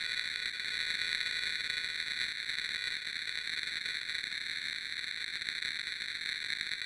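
Creepy, eerie TV or radio static: a steady hiss concentrated in a few high, band-like layers, without breaks.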